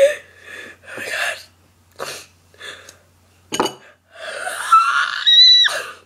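A girl's short, sharp gasping breaths and sniffs, about six in the first four seconds, as a twisted napkin tickles inside her nostril. They end in a longer breathy gasp with a rising high-pitched squeal. It is the build-up to a sneeze that never comes.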